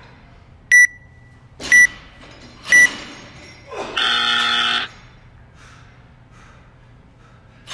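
Workout timer counting down: three short high beeps a second apart, then a longer, lower buzzer about a second after the last one. The buzzer signals that the time cap has run out.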